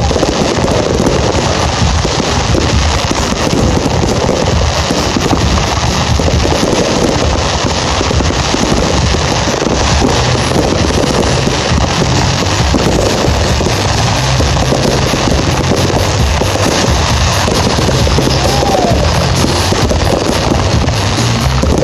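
Music playing loudly alongside a continuous barrage of fireworks, with many bangs and crackles packed closely together and no let-up.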